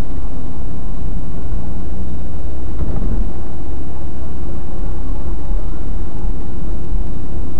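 Steady engine and road rumble inside a moving car, picked up by a dashcam microphone, with a low hum running under it.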